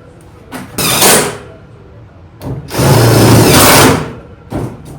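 Handheld power driver running in two bursts, a short one about a second in and a longer one of about a second and a half, driving bolts that fasten the welder's sheet-metal shrouding.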